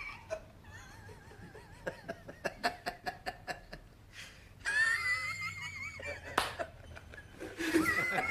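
Hard, uncontrolled laughter in high, wavering peals broken by quick breathy pulses, loudest about halfway through.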